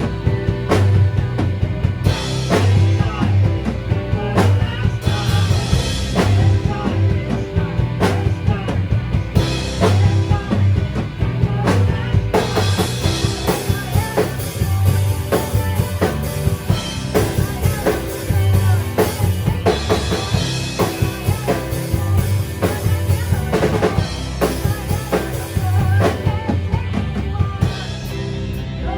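Rock band playing with drum kit, bass, guitars and keyboards, the drums keeping a steady beat. Near the end the drums drop out and the guitar carries on.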